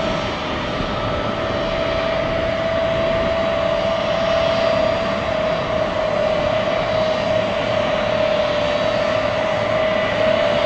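Aircraft engines running steadily: a constant rush with one steady high whine held throughout.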